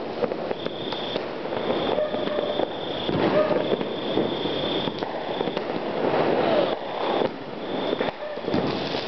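Many fireworks going off at once, a dense, continuous run of overlapping bangs and crackling, with a thin high tone that comes and goes.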